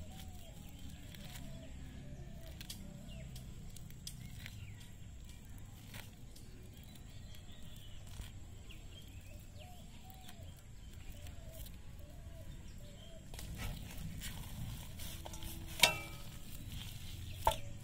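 Hands pulling and squeezing the stringy, pulpy flesh of a ripe palmyra palm fruit in a steel bowl: faint soft clicks and squelches over a low outdoor rumble. Faint short animal calls sound throughout, and there are two sharper sounds near the end.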